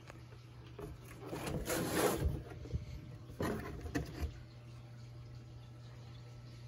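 Cardboard packaging being handled and shifted, in two bursts of scraping and rustling: one about a second in and a shorter one past three seconds. A steady low hum runs underneath.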